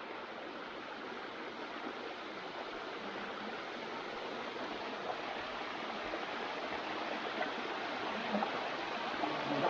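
Steady rush of a stream running and cascading over rocks, growing gradually louder.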